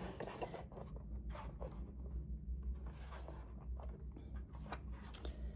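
Hands handling a plastic mechanical keyboard: scattered light scrapes, taps and small clicks, with one sharper click about five seconds in, over a faint low hum.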